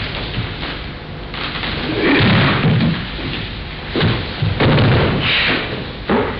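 Several heavy thuds and scuffs of bodies and feet on a wooden dojo floor during a naginata sparring demonstration, with a man thrown down to the floor near the end.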